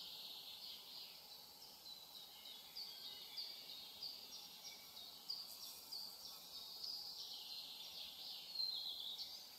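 Faint forest ambience of small birds chirping and singing in many short, high notes over a soft hiss.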